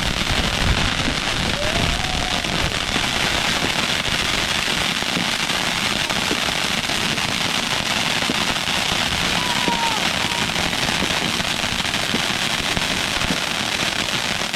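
Fireworks crackling densely and without a break at a steady level, with no single loud bang standing out.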